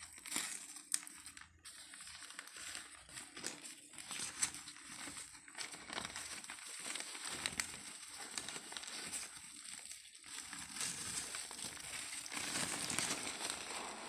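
Newspaper wrapping crinkling and crumpling in the hands as it is pulled off plants' roots, a continuous crackle with many sharp snaps, a little louder near the end.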